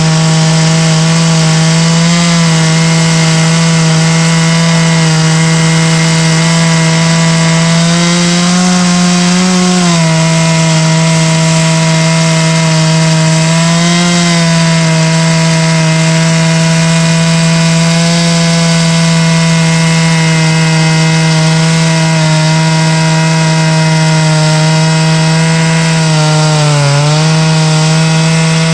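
A big-displacement chainsaw running at steady high revs under load, ripping lengthwise through an oak log on a chainsaw mill. The engine note holds steady and sags briefly a few times as the cut loads it.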